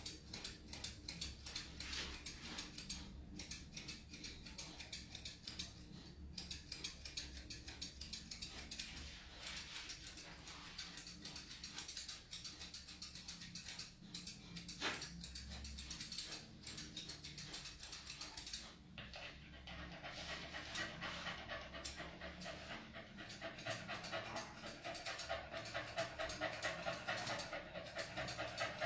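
Small dog panting rapidly, with grooming scissors snipping close to its face. The panting grows louder in the last third.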